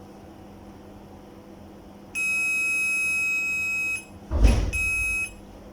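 Digital multimeter's piezo buzzer giving a steady high beep for about two seconds, then a thump, then a second, shorter beep, as the probes touch the LED strip in LED/diode test mode.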